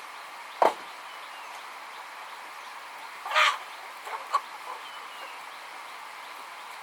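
Chickens clucking: one brief loud call a little past three seconds in, followed by a few short clucks. A sharp knock comes just under a second in.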